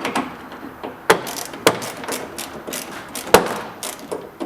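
Hand tool clicking and knocking as a 10 mm bolt holding a tail light housing is unscrewed, in irregular sharp clicks with a few louder knocks, the loudest about three seconds in.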